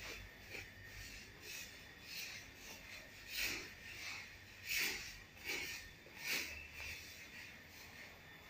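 Rhythmic scratchy scraping and rustling on a leaf-strewn path, about one stroke a second.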